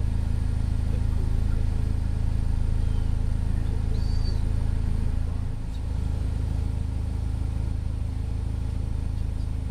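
Steady low rumble of a running vehicle engine, with a faint short high chirp about four seconds in.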